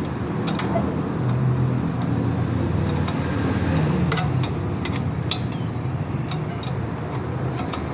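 Engine running steadily, its pitch wavering a little, with several sharp metallic clicks scattered through it.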